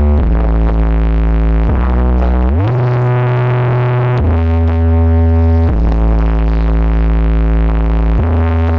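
Loud electronic music played through a large carnival sound system during a sound check: heavy held synth bass notes, each lasting one to two and a half seconds, with one sliding up in pitch about two and a half seconds in.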